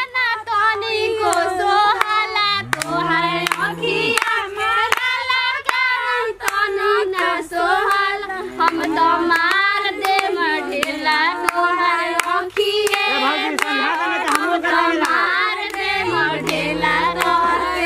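Group of women singing a Bhojpuri wedding folk song together, clapping their hands to the beat.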